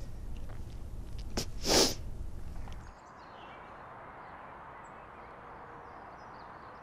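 A tearful woman sniffs once, sharply, just under two seconds in, over a low room hum. About three seconds in this gives way to a faint, steady outdoor hiss.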